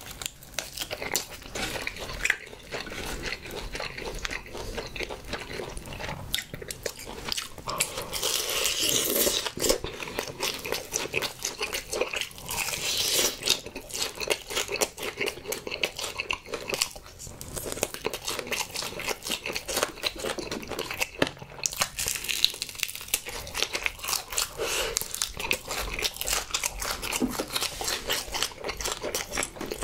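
Biting and chewing fried honey chicken drumsticks, a dense run of small clicks and smacks, a little louder in a few stretches.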